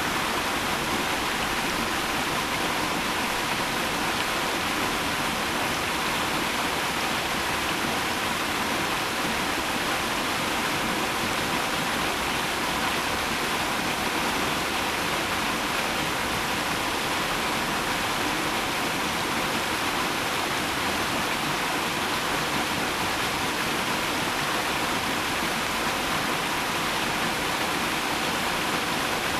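Waterfall: falling water rushing in a steady, unbroken hiss.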